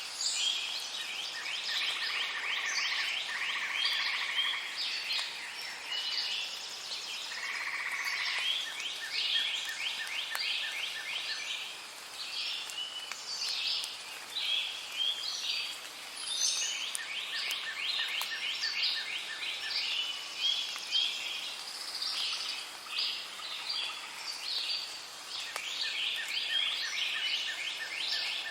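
Several birds singing at once: a busy, unbroken chorus of rapid chirps and trills, with a lower, even trill that comes and goes every several seconds.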